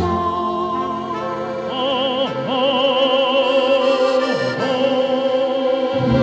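Music: a song with long held notes sung with strong vibrato over instrumental accompaniment, in an operatic or classical style.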